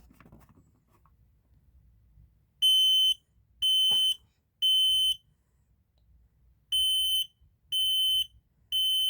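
Kidde P3010L photoelectric smoke alarm sounding under test: two rounds of three loud, high-pitched beeps, each about half a second long, in the temporal-three alarm pattern. The last beep runs on past the end.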